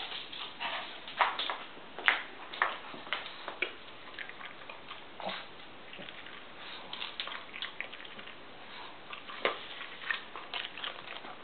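A pet dog's irregular soft clicks and taps, a few a second at most, with no barking or voice.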